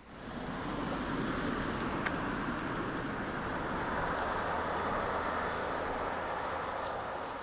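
Waterfall rushing, a steady even roar of falling water that starts and stops abruptly.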